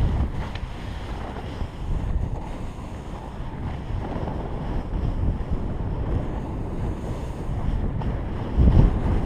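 Wind buffeting a GoPro's microphone during a fast descent over snow, a continuous low rushing mixed with the hiss of sliding over the snow, with a louder low gust near the end.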